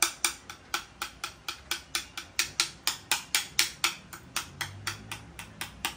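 Spoon knocking and scraping against a ceramic mixing bowl while scooping out a thick cream cheese mixture: a quick, even run of sharp clicks, about five a second.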